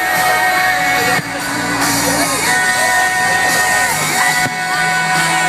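Loud dance-pop music with a singing voice.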